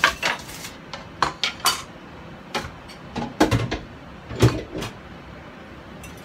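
Dishes being handled on a kitchen counter: about ten separate clinks and knocks of bowls and plates being picked up and set down, two of them heavier thuds midway.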